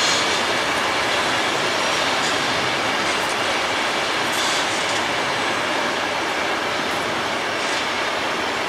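Empty flat wagons of a freight train rolling past: a steady rumble of wheels on rail, with a few brief high squeals from the wheels.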